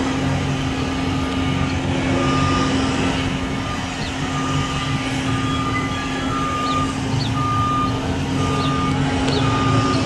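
A construction vehicle's backup alarm beeps repeatedly, about once a second, over a steady engine hum and low rumble.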